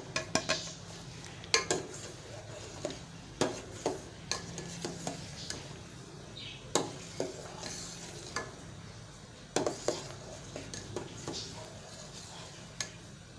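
A steel ladle stirring milk in a stainless steel pot, clinking and scraping against the pot's sides and bottom at irregular intervals, over a steady low hum.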